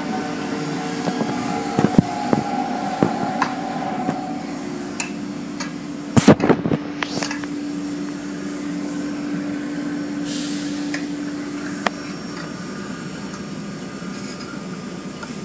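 Automatic car wash heard from inside the car: water spray hitting the body and glass over a steady machine hum, with scattered sharp knocks, the loudest cluster about six seconds in.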